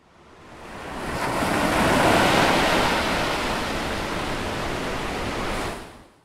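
Rushing water sound effect like surf, swelling up over the first two seconds, holding steady, then fading out near the end.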